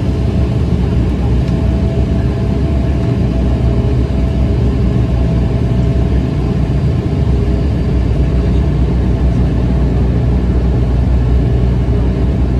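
Steady cabin drone of a Bombardier Dash 8 Q300's turboprop engine and propeller, heard from a seat beside the propeller with the landing gear down on approach. A low, even rumble runs under a faint steady tone.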